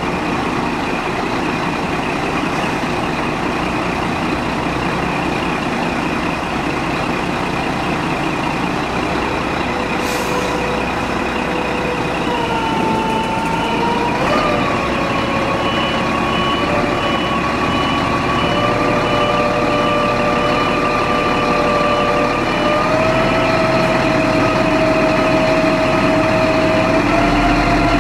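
Scania hook-lift truck's diesel engine running while its hydraulic hook arm lifts the mass decontamination pod. About halfway in a hydraulic whine comes in and steps up in pitch a few times as the arm takes up the load, with a faint high beeping alongside.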